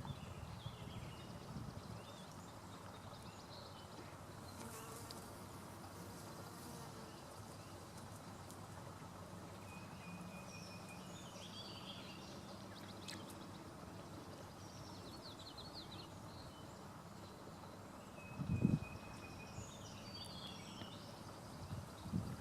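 Quiet outdoor ambience: faint scattered bird chirps and calls, a low steady hum, and a dull thump late on, which is the loudest sound, followed by a smaller one near the end.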